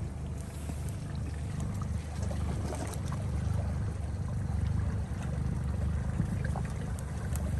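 Outboard motor of a rigid inflatable boat running steadily at low speed, a low even rumble, with water trickling and splashing along the hull.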